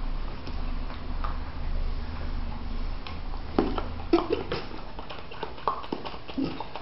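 Labradors eating spaghetti: wet chewing, smacking and clicking mouth sounds, thickest in the second half. A low, pulsing rumble runs through the first half and fades out about halfway in.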